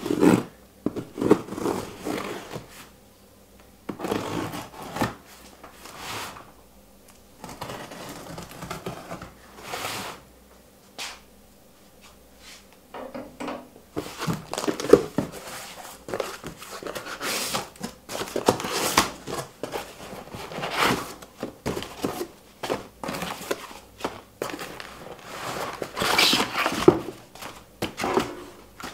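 A cardboard box being unpacked: a blade slicing through the packing tape along its seam, then the flaps pulled open and cardboard inserts pulled out. The result is a run of irregular scrapes, rustles and thunks.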